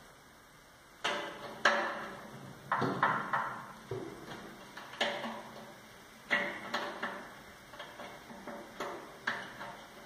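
Push-on wire connectors being fitted to new bimetallic thermal protectors inside an opened microwave oven's metal casing: a series of sharp clicks, knocks and rustles, starting about a second in.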